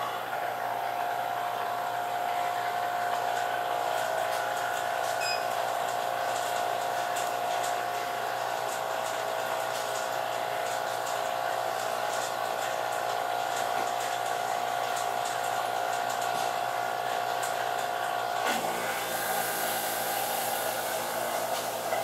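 Hermetic refrigerator compressor running with a steady hum and a clear tone, just switched on after its oil change. About 18 seconds in the sound shifts and a high hiss joins in as it starts drawing suction through its hose.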